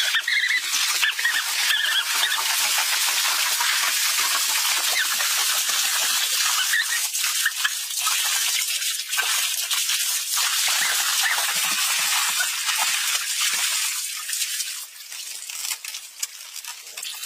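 Pool water splashing and sloshing as people thrash about in it, a dense splashing that stops about fourteen seconds in, leaving quieter, scattered water sounds.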